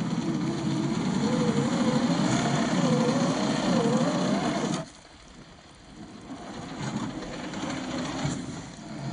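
Electric motor and geared drivetrain of a 1/10 scale RC crawler whining, the pitch rising and falling with the throttle. The whine drops away suddenly about five seconds in, then comes back more quietly.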